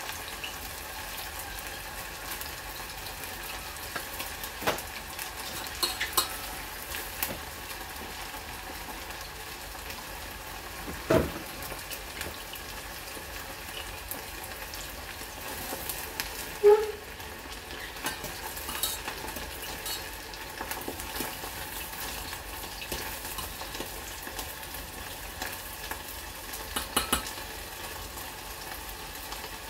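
Food frying in oil with a steady sizzle in a stainless steel saucepan, with a few sharp clinks and knocks of a utensil stirring or turning it in the pan, the loudest about eleven and seventeen seconds in.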